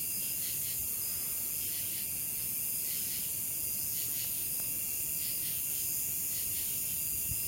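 Steady high-pitched chorus of night insects, with no thunder.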